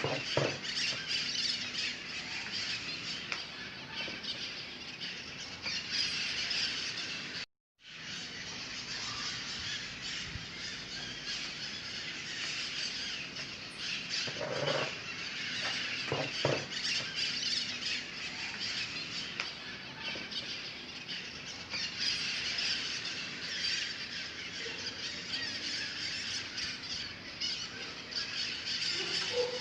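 A flock of birds chirping and squawking all at once in a dense, unbroken chatter, cut by a brief moment of total silence about seven and a half seconds in.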